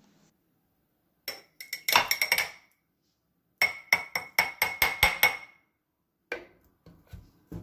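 Metal spoon clinking and tapping against the rim of a small glass jar, knocking off scoops of solid coconut oil. Two runs of sharp ringing taps, the second quicker at about five a second, then a few lighter knocks near the end.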